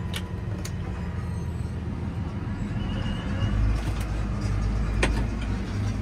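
Massey Ferguson tractor engine running steadily, heard from inside the cab while pulling a big square baler. A few light clicks sound, and a deeper rumble swells for about a second and a half past the middle.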